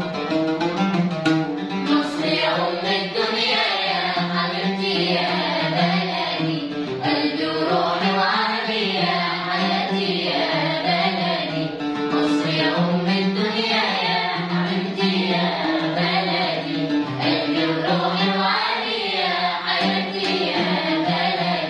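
Children's choir singing an Egyptian song together, accompanied by an oud.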